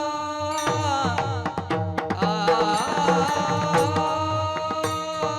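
Warkari kirtan music: a mridang drum beating a steady rhythm under a held melody line with rich overtones, between sung lines of the chal.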